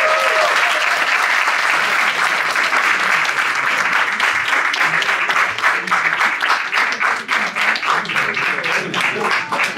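Crowd applauding in a room, with a cheering voice trailing off in the first half second. The clapping thins out toward the end into scattered separate claps.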